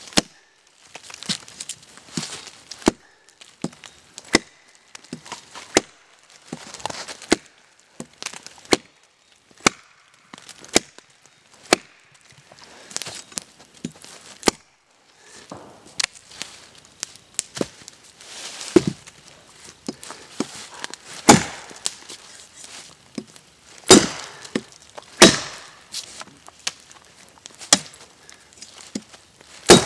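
A large chopping blade striking a dead log over and over, a sharp wooden chop about every second or second and a half with rustling between the strokes; the hardest strikes come in the second half.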